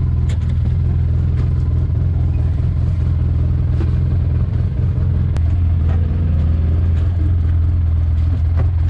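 Off-road vehicle engine running steadily at low speed while the vehicle creeps through a muddy water hole, with a few light clicks and knocks.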